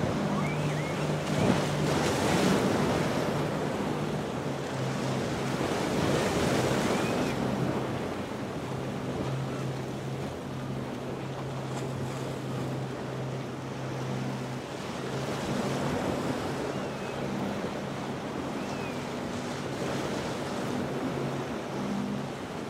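Waves surging and breaking in rough water, with wind on the microphone. Under it a boat engine runs with a steady low hum. The surf is loudest about two and six seconds in.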